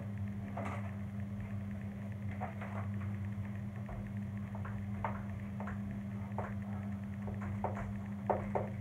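Chalk tapping and scraping on a blackboard as words are written, short strokes one after another that come faster near the end, over a steady low hum.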